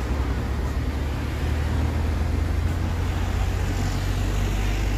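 Road traffic noise: a steady low rumble of vehicles going by, with no distinct events.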